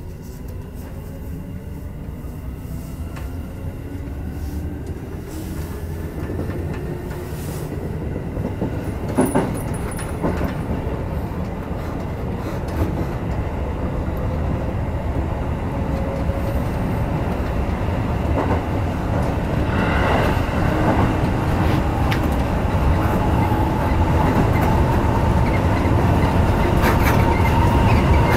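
Seibu Shinjuku Line electric commuter train pulling away from a station, heard from the driver's cab. The traction motors' whine rises in pitch and the running noise grows steadily louder as it gathers speed, with a few sharp clacks as the wheels cross rail joints.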